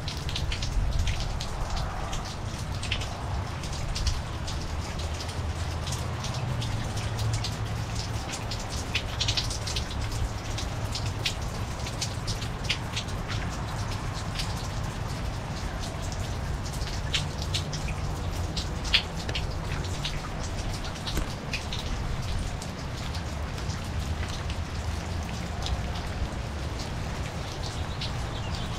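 Steady rain falling on a garden and wet concrete walkway, with many separate drop hits ticking close by and a low steady rumble underneath.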